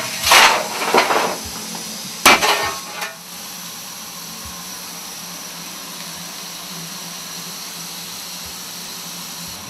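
Steel coal shovel scraping and clanking on metal in a steam locomotive's cab as coal is fired into the firebox: several sharp strikes and scrapes in the first three seconds. After that only a steady rush of cab noise from the running engine.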